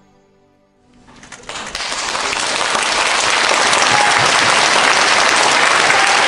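The last soft notes of music fade out, then an audience breaks into applause about a second in, swelling over the next two seconds and holding steady and loud.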